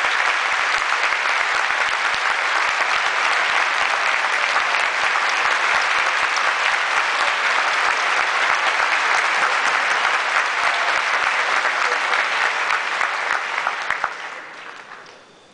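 A large audience applauding steadily, the clapping dying away over the last second or so.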